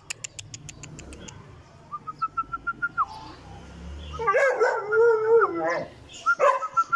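A dog howling: a wavering call of about a second and a half, preceded by a quick run of short high notes that slide down at the end, with more short high notes near the end.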